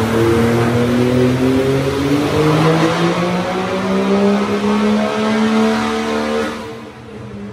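Diesel pickup truck's engine under a full-throttle pull on a chassis dyno, its pitch climbing steadily. About six and a half seconds in the throttle lifts and the sound drops away.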